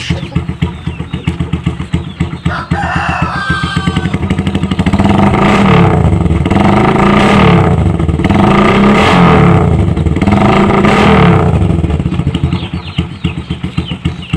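Bajaj CT 125 single-cylinder four-stroke motorcycle engine idling with an even, fast pulse. From about five seconds in it is revved up and let back down about four times, then settles back to idle. A rooster crows briefly about three seconds in.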